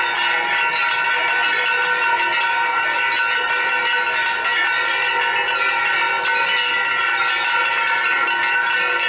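Many tezutsu hanabi, hand-held tube fireworks, spraying sparks at once. They make a continuous loud hiss with steady whistling tones and light crackling through it.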